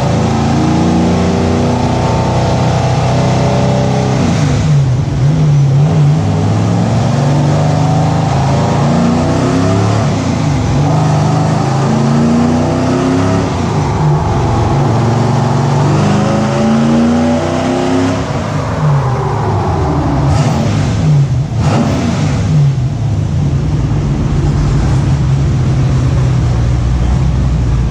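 Sandrail's 6.0-litre LS V8 with LS3 heads pulling under load on a chassis dyno, its pitch climbing in several sweeps. Near the end it drops back to a steady idle. The fuelling is still lean on this pull, about 30% short.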